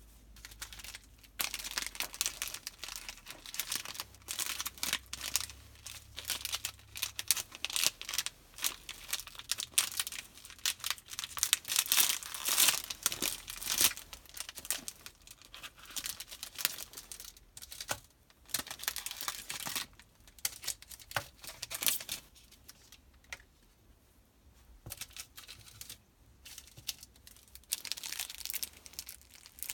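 Kinder Bueno chocolate bar's plastic wrapper being handled, crinkled and torn open, in irregular bursts of crackling with short quieter pauses.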